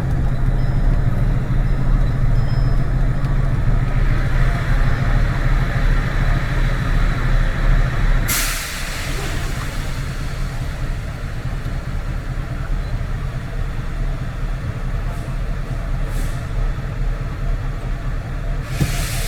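Mercedes-Benz Actros truck's diesel engine idling while its compressor fills the air reservoirs after a brake test. About eight seconds in comes a short, sharp hiss of released air and the engine note drops slightly, with fainter puffs later and another sharp hiss near the end.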